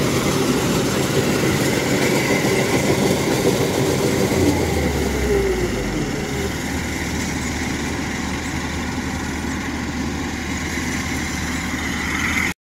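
Diesel engine of a combine harvester running steadily, with a deeper rumble swelling for a moment about halfway through. The sound cuts out abruptly just before the end.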